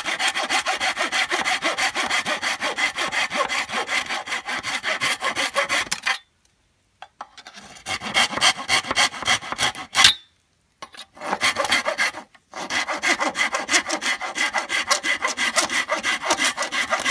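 Hand pruning saw cutting through a standing green bamboo culm, at about four quick rasping strokes a second. The sawing stops briefly twice and resumes, with one sharp click about ten seconds in.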